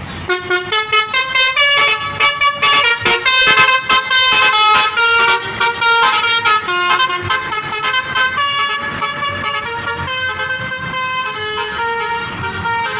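Bus telolet horn, a multi-tone musical air horn playing a tune: quick short notes for the first few seconds, then longer held notes, slightly quieter in the second half.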